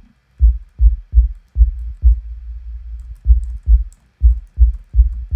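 Deep, booming synth bass thumps from the u-he Podolski software synth's "Bubble Thump" preset, about a dozen hits in an uneven repeating pattern, some in quick pairs, with a low hum sustaining between them and a short gap in the middle.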